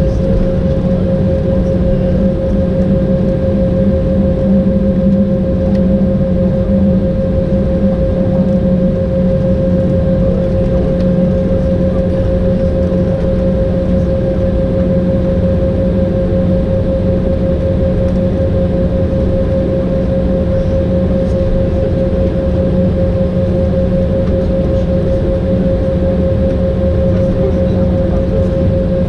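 Cabin noise of an Embraer 190 taxiing on its GE CF34 turbofan engines: a steady drone with a constant mid-pitched whine over a low rumble.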